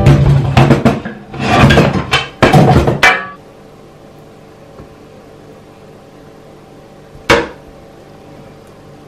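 Kitchen cookware clattering: a run of knocks and scrapes of pans and utensils lasting about three seconds. Then it goes quiet apart from one sharp knock.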